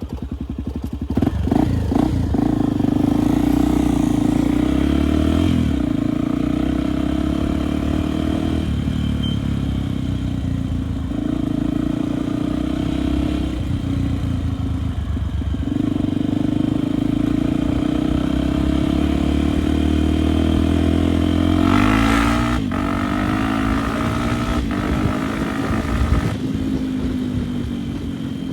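Dirt bike engine running while riding: a steady engine note that eases off briefly several times, then rises and falls as the rider works the throttle late on, with a single knock near the end.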